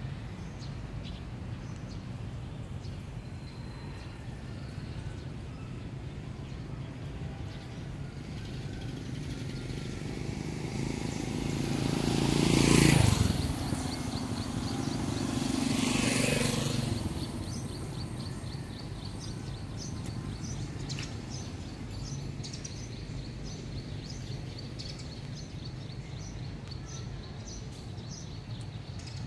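Two motor vehicles pass close by one after the other. The first swells to the loudest point about 13 seconds in and drops in pitch as it goes past. The second, a motorbike, passes about three seconds later. Over a steady outdoor background, a bird chirps rapidly and repeatedly through the second half.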